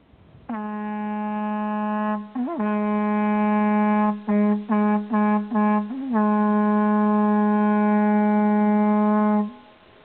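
A hunting horn blown on a single note: a long blast, a short upward bend, another long blast, four short blasts, a brief bend, then a final long blast that stops near the end.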